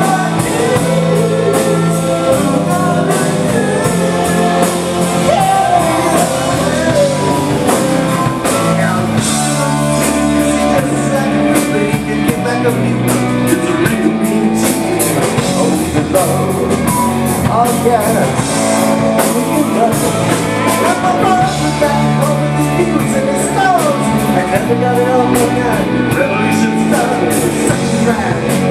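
Live glam rock band playing, with a male lead singer singing into a handheld microphone over electric guitar and a steady drum beat.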